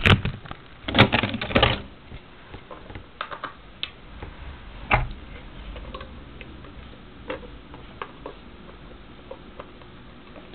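Plastic Lego pieces clicking and knocking as a fallen turret is fitted back onto a brick model: scattered sharp clicks, busiest about a second in, then single ones spread out.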